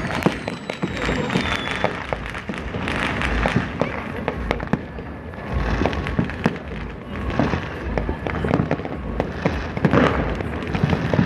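Dozens of New Year's fireworks and firecrackers going off across a city at once: a continuous crackle of overlapping pops and bangs, with low booms mixed in.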